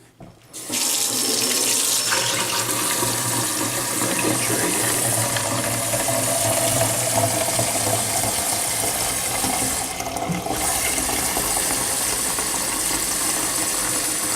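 Kitchen tap running into a container as cold water is added to a coffee maker for a vinegar cleaning cycle. The flow starts about a second in, runs steadily with a short dip near the end, and stops.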